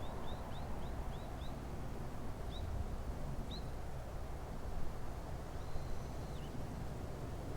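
Small bird calling: a quick run of short, rising chirps in the first second and a half, two single chirps after that, and a longer held note ending in a drop near the end, over a steady low rumble.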